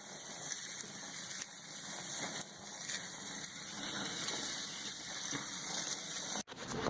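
Steaks sizzling on a gas grill: a steady hiss with faint scattered crackles, cutting off abruptly about six and a half seconds in.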